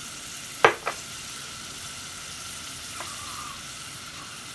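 Grated onion and carrot sautéing in oil in an aluminium pot, a steady sizzle, with two sharp knocks close together about a second in.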